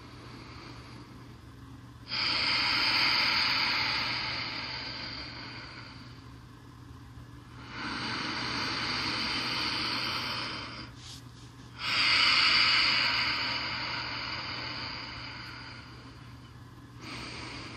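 A woman's slow, deep yogic breathing close to the microphone: three long, audible breaths of several seconds each, each swelling quickly and then fading.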